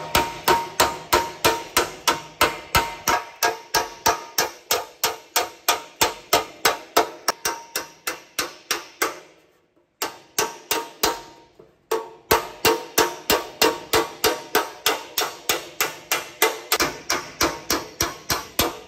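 Small body hammer planishing a freshly gas-welded patch on a steel oil pan from a 1962 Ford Falcon 170, blows falling fast and evenly at about three a second, each with a metallic ring. The weld is still glowing hot as the hammering begins; the blows stop for about a second just past the middle and pause again briefly soon after.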